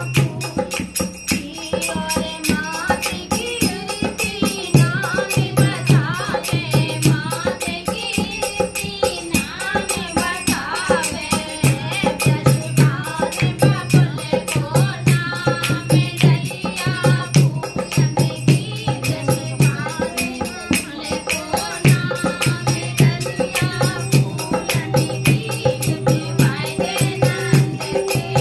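Women's voices singing a Hindi devotional bhajan together to a lively beat. A dholak is played with both hands, with repeated deep bass strokes, over steady hand clapping and the jingle of small hand cymbals (manjira).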